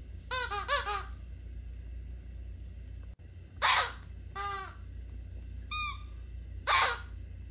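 Rubber squeaky toy squeaking as a puppy bites and chews it: a quick run of three squeaks near the start, then four single squeaks about a second apart from about three and a half seconds in, over a low steady hum.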